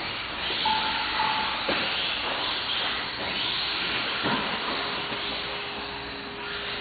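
Small 1/18-scale electric RC cars racing round a carpet track: a steady hissing whir of their motors, gears and tyres, with a couple of sharp knocks as cars hit the barriers and a faint steady whine in the second half.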